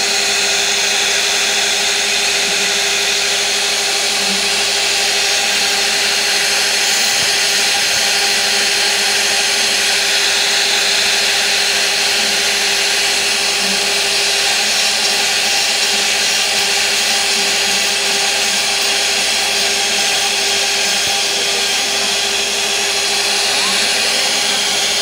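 CNC router spindle running steadily with a carving bit cutting a relief into a wooden panel: a constant motor hum with one held pitch under a dense hiss from the cutter in the wood.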